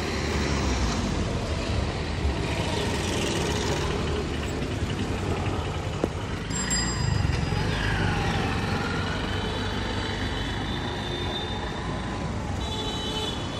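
City street traffic: vehicle engines running close by with a steady low rumble, with distant voices and a short high-pitched tone near the end.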